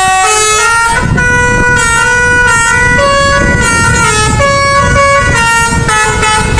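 Bus musical air horn ('telolet basuri') playing a tune: a continuous run of held notes stepping up and down in pitch every half second or so, over a low rumble.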